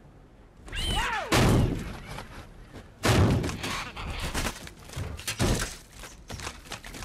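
Blast impacts and debris: a heavy crash about a second in, another about three seconds in, then a run of thuds, bangs and clattering debris.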